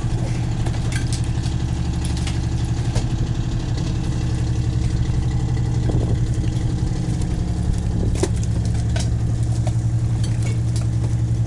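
Fishing boat's engine running steadily at a low, even pulse, with a few sharp knocks and clatters on top.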